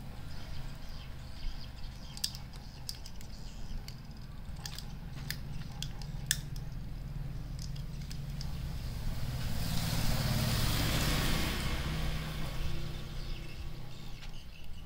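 Kitten crunching dry kibble from a plastic tub: scattered sharp crunches and clicks. Under it runs a steady low rumble that swells into a louder rushing noise about ten seconds in and fades again a couple of seconds later.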